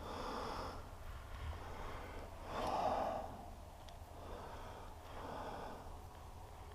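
A man breathing close to the microphone, one breath about every second and a half, the loudest about three seconds in.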